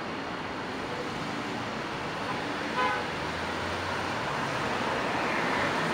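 Steady road traffic noise of passing cars, with one brief car horn toot about three seconds in.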